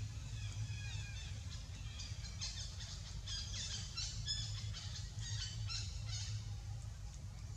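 Birds chirping in quick, high, twittering runs, busiest from about two seconds in until about six seconds, over a low steady rumble.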